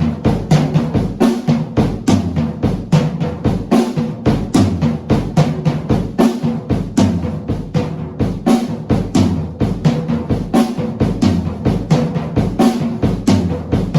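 Acoustic drum kit played in a fast, continuous run of hits, mixing snare and bass drum strokes.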